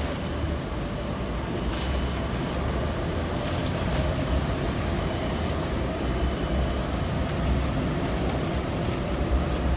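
Steady low rumble of a ferry's diesel engine, with a faint wavering hum and a few light clicks.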